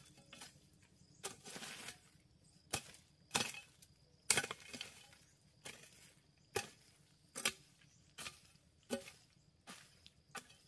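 Repeated blows of a hand tool, chopping about a dozen times at an uneven pace of roughly one a second, a few strokes trailed by a short scraping rustle.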